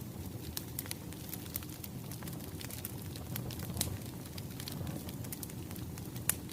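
Firewood burning: irregular sharp pops and snaps over a steady low rumble, the loudest pops about four and six seconds in.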